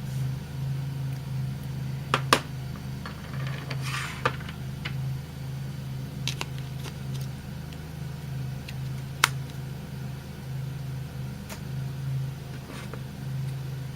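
Scattered sharp clicks and light handling of battery cells being loaded into a Kodak Zi8 pocket camcorder, the loudest about two seconds in and again about nine seconds in, over a steady low hum.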